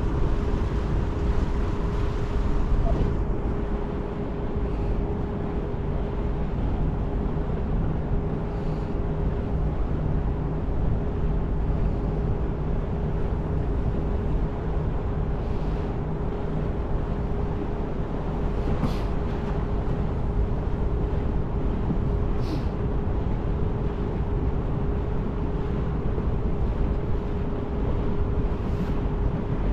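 Passenger ferry under way: steady engine and machinery running with a constant hum over a low rumble, plus a few faint ticks.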